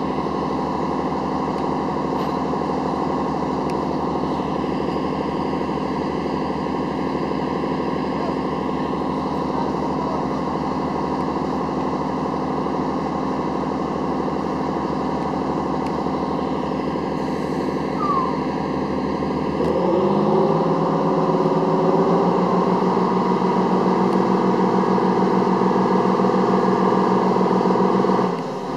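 LARC-LX amphibious cargo vehicle's diesel engines running steadily. About twenty seconds in they rev up and run louder, then drop back near the end.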